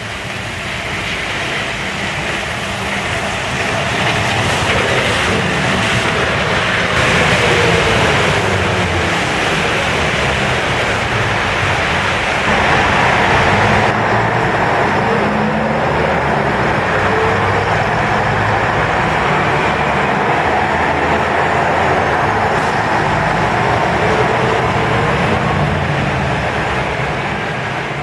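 City buses driving past in street traffic, diesel engines running with their pitch rising and falling as they pull away and change gear, over steady road noise.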